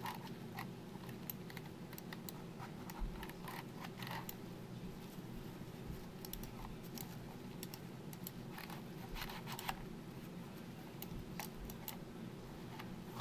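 Faint, irregular small clicks and scratches of a fingernail picking along the seams of a plastic computer mouse to work out dirt, over a low steady hum.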